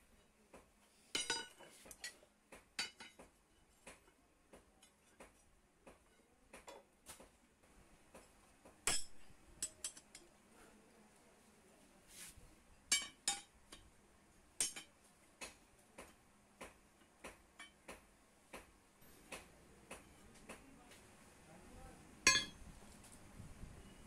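Steel rods and tools clinking and knocking against each other and the steel anvil block as they are picked up and set down: scattered, irregular metallic strikes, the loudest about a second in, about nine seconds in and shortly before the end.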